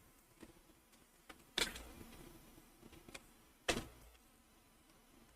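Tarot cards being handled during a reading: a few light ticks and two sharp snaps, about two seconds apart, as cards are shuffled, cut or laid down.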